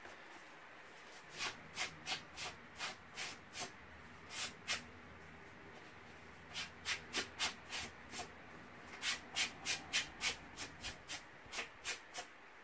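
Sanding block rubbed in short, quick strokes along the cut edge of paper, about three strokes a second in two runs with a pause between them. It is smoothing away the frayed fibres that a small trimmer leaves on cheap designer paper.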